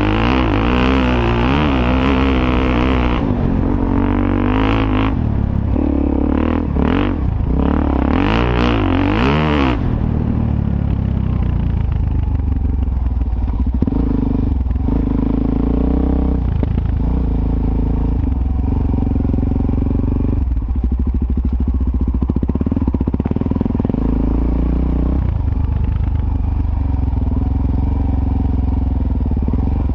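Suzuki DR-Z400S single-cylinder four-stroke engine on the move, revving up and down with the throttle for the first ten seconds or so, then running at lower, steadier revs.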